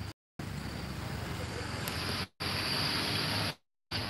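Steady chirring of crickets over a low background rumble. The sound cuts out completely three times, each for a fraction of a second.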